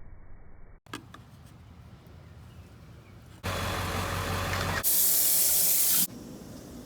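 Water running and spraying in short cut-together clips, loudest as a hard, even hiss for over a second about five seconds in.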